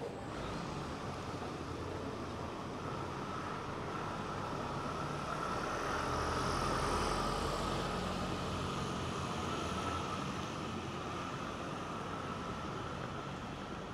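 A motor vehicle passing on the street, its sound swelling to a peak about halfway through and then fading.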